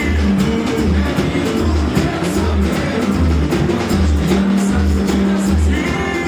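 Samba band playing a samba-enredo, driven by a deep, steady surdo beat roughly every three quarters of a second under busier percussion.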